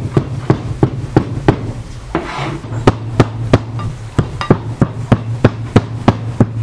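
A cleaver chopping meat on a board: steady strikes about three a second, with a short break about two seconds in. A low steady hum runs underneath.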